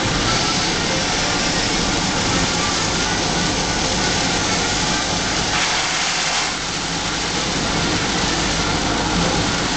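Heavy rain falling on a car's roof and windscreen, heard from inside the moving car over steady engine and tyre noise. A louder hiss rises briefly about halfway through.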